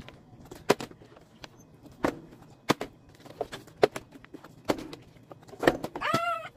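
A series of sharp, short knocks or taps, about one a second, then a brief high-pitched voice near the end.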